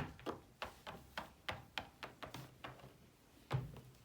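Quick light steps tapping on a hard floor, about three a second, with one heavier thump near the end.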